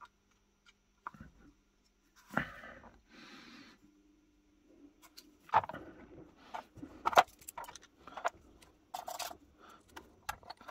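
Scattered small metal clicks, clinks and short scrapes as the trigger and lock parts of an antique percussion pocket pistol are handled and fitted together with a screwdriver, with one short scraping sound about three seconds in.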